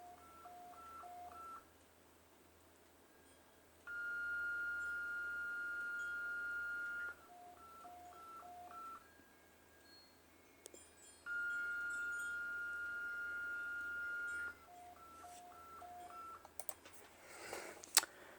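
Fan-made mock emergency alert tone: three short beeps followed by a long, higher, steady tone of about three seconds. The pattern repeats twice and ends on three more beeps.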